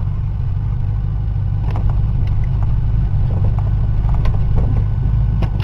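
1978 Ford LTD on a test drive: a steady low rumble of engine and road noise, heard from inside the car.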